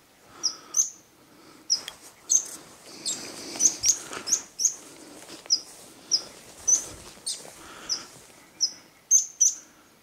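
A small songbird singing: short, high chirps repeated about every half second, with a few faint knocks in between.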